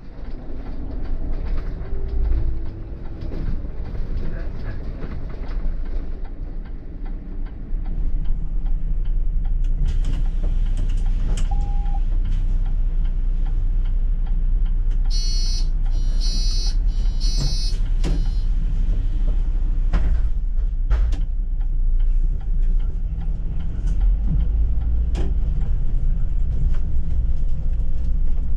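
City bus driving, a steady low engine and road rumble that grows louder about eight seconds in. About halfway through come three short bursts of high-pitched beeping.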